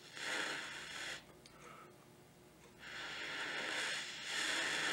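Gentle breath blown through a mouth blowpipe into a lamp flame to solder: a steady hiss that stops about a second in, then, after a pause of under two seconds, a second, longer blow.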